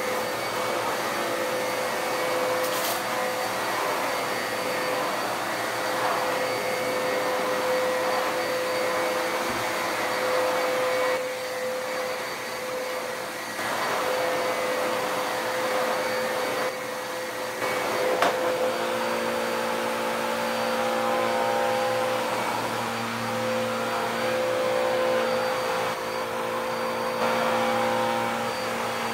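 Dirt Devil PowerMax Pet upright vacuum cleaner running continuously over a carpet, a steady motor whine. The level dips briefly twice in the middle, and a single sharp click comes about two-thirds of the way through.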